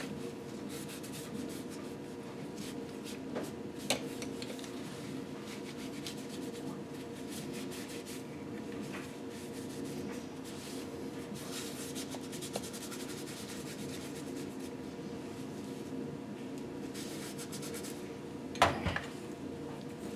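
Hand cleaning of an engine piston: soft rubbing and scraping in uneven patches, with a click about four seconds in and a sharp knock near the end, over a steady low hum.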